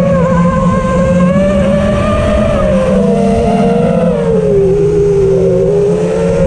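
Quadcopter motors and propellers whining, heard from the camera on the quad itself, the pitch rising and falling with the throttle: it dips lower about two thirds through and climbs again near the end. A low rumbling hum runs underneath.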